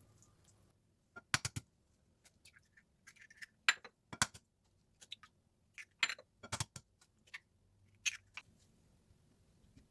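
Kitchen utensils and containers clinking: a series of sharp, short clinks and taps, irregularly spaced and in small clusters, the loudest two about halfway through.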